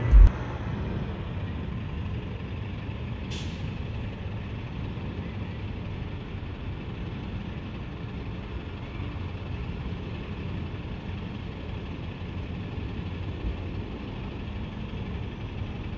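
Steady city traffic and road noise from driving, with a short, sharp hiss about three and a half seconds in.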